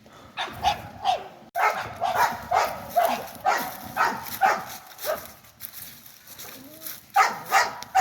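A dog barking repeatedly, about three barks a second, pausing for a moment a little after the middle and then starting again.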